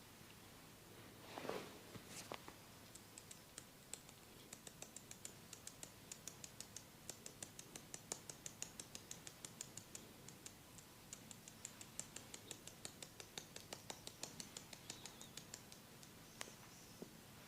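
Faint, steady run of light, crisp clicks, about three a second, with a soft rustle before the clicking starts.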